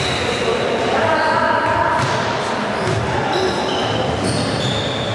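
Sounds of a floorball game in a sports hall: players' shoes squeaking on the court floor, a few knocks and shouted calls, all echoing in the large hall.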